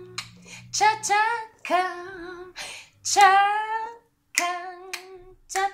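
A woman's voice repeating the soft and hard sounds of the letter C in turn, about five drawn-out, sing-song syllables, each starting with a sharp consonant.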